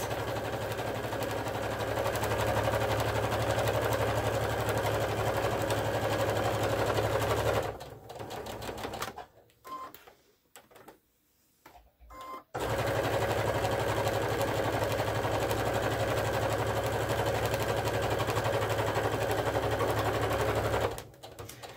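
Electric domestic sewing machine stitching steadily through layered cotton gingham and terry cloth. It stops about eight seconds in, leaving a few seconds of near quiet with faint handling sounds, then runs again until just before the end.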